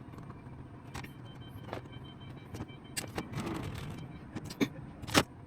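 A steady low mechanical hum with sharp clicks and knocks scattered through it, the loudest a little after five seconds in.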